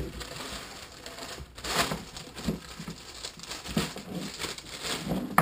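Thin 2-mil plastic bag rustling and crinkling in irregular bursts as it is handled and pulled over a packed frame.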